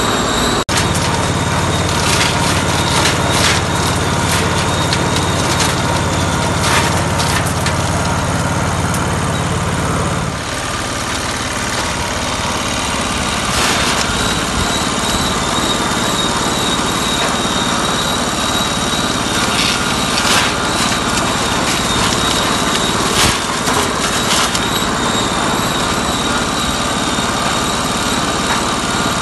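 Threshing machine running while dry chickpea plants are fed into it: a loud, steady mechanical din with repeated knocks and crackles as the plants are beaten. A low engine drone under it thins out about ten seconds in.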